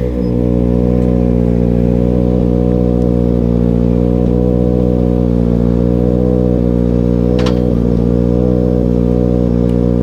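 Steady car-engine hum at an unchanging pitch, with a single short click about seven and a half seconds in.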